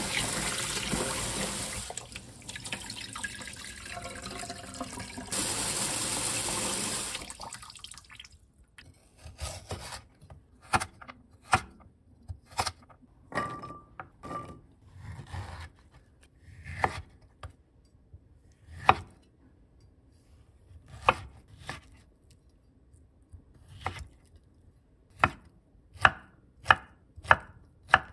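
Tap water running into a stainless colander of rice while it is washed by hand, stopping about seven seconds in. Then a chef's knife chopping vegetables on a wooden cutting board in separate sharp knocks, ending in a quick run of about five even chops.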